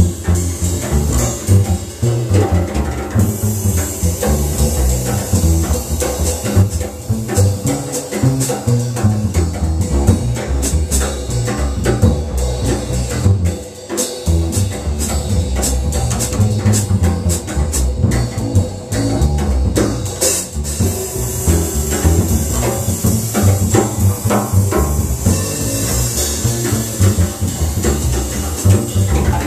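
Plucked upright double bass and a drum kit playing jazz, cymbals riding over the bass line, with a brief drop in level near the middle.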